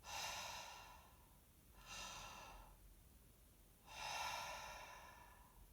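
A person breathing slowly and deeply: three soft, airy breaths about two seconds apart, each fading away.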